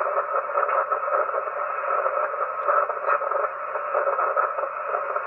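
HF ham radio receiver audio: a harsh, steady noise with irregular crackles and no signal heard through it. This is unexplained interference that the operator hears on every frequency he tunes. It opens with a click.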